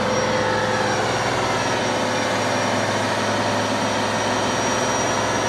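Heavy road-construction machinery running, a steady engine drone with a constant hum that does not change.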